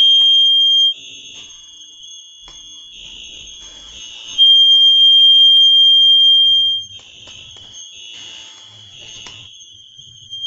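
Apartment fire alarm sounding one steady, high-pitched tone without a break. It suddenly gets much louder a little over four seconds in and drops back near seven seconds.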